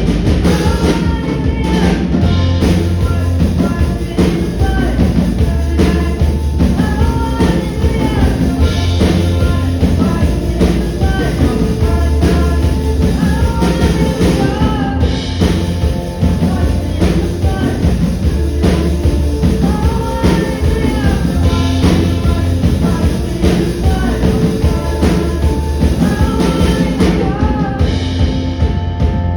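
A live rock band playing a song with a singer, drum kit and strong bass, at a steady beat.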